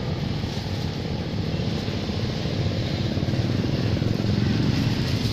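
Steady low rumble of passing street traffic, motorbikes among it, growing a little louder toward the end.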